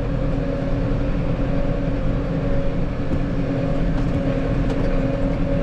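Tractor engine running steadily at a constant speed, a continuous low drone with a steady hum.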